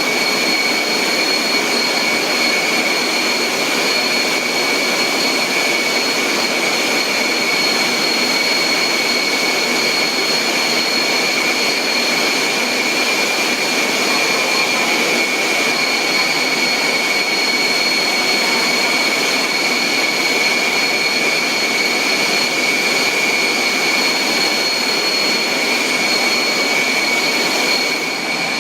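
Meat-processing machinery running: a steady rush of mechanical noise with a constant high-pitched whine over it.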